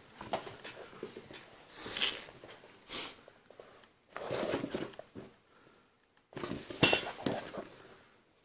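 A cardboard trading-card box being handled and turned over in the hands, rustling and scraping in a few short bursts, with one sharper knock about seven seconds in.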